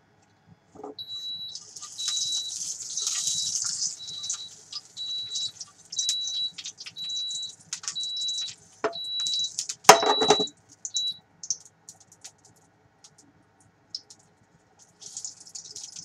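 Cicada nymphs sizzling and spattering in hot oil in a frying pan, with crackling pops, while an induction cooktop beeps about twice a second with the pan lifted off it. About ten seconds in, the pan clunks back down onto the cooktop and the beeping stops.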